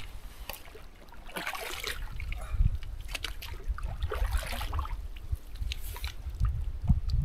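Lake water splashing and sloshing as a collapsible water bag is dipped in and filled, in two bursts, about a second and a half in and again around four seconds, over wind rumbling on the microphone.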